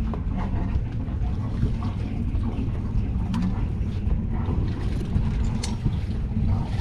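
A sailboat's inboard auxiliary engine idling steadily with a low rumble, moments after being started.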